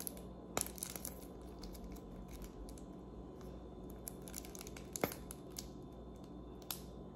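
Faint, scattered clicks and crackles from a plastic squeeze bottle of caramel sauce, squeezed upside down while the thick sauce is slow to come out. A low steady hum of room tone runs underneath.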